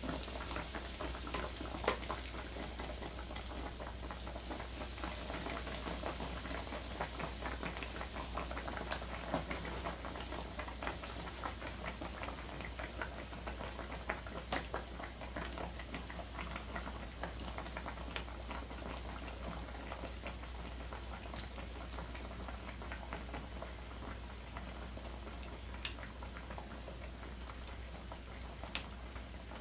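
Breaded pork cutlets deep-frying in hot oil in a frying pan: a dense, steady crackle of bubbling oil with occasional louder pops, starting as the first cutlet is lowered in.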